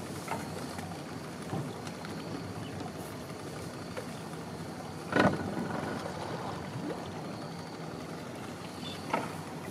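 A steady low rumble with one loud knock about five seconds in and a fainter click near the end.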